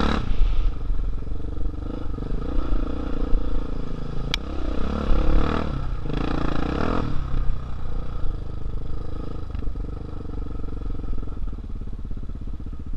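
Off-road motorcycle engine running under the rider on a rough dirt track, the revs rising and falling between about four and seven seconds in, then settling to a steadier, lower run near the end. A single sharp click sounds about four seconds in.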